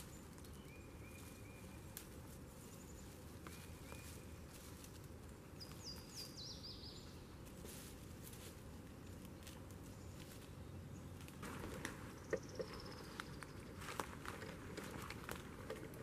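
Faint woodland ambience with bird calls: a short high note twice in the first few seconds, and quick falling chirp series about six and twelve seconds in. From about twelve seconds on, footsteps crackle and twigs snap in dry leaf litter and brush.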